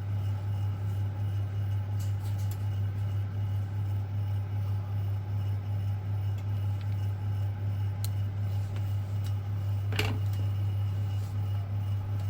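A steady low hum, with a few faint clicks and a sharper click about ten seconds in.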